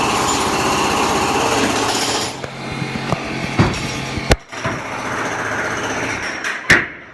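Construction-site sounds: rapid mechanical hammering for about two seconds, then machinery running steadily with a few sharp bangs.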